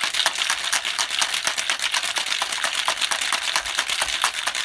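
Ice rattling fast and steadily inside a copper cocktail shaker being shaken hard, mixing a drink with cream to froth it.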